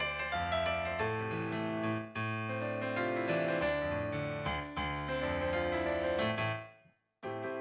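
Piano playing sustained chords, with the bass note changing about once a second. Near the end the sound fades out to a moment of silence, then the playing starts again.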